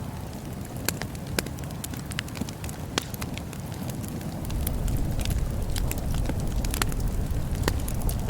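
Wood bonfire crackling, with sharp pops at irregular intervals over a low rumble that grows louder about halfway through.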